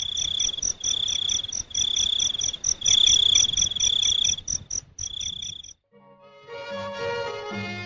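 Insects chirping: a steady high pulse about four to five times a second with repeated short trills between, cutting off suddenly about six seconds in. Instrumental music begins right after.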